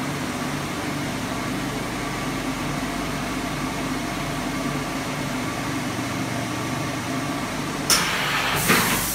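LK-61A blister vacuum thermoforming machine running with a steady mechanical hum and a pulsing low drone. About eight seconds in, a short burst of hiss is heard, and a longer one follows near the end.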